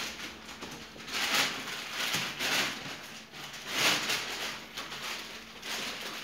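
Adhesive vinyl letters being peeled off their plastic backing sheet and the sheet handled: three or four short bursts of crackly rustling.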